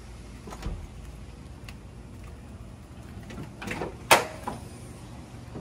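Scattered knocks and clatters of things being handled, the loudest a single sharp knock a little after four seconds in.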